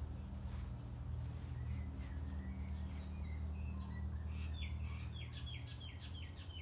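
Small bird chirping: scattered high chirps, then a quick run of short chirps, about four a second, near the end. Underneath is a steady low hum.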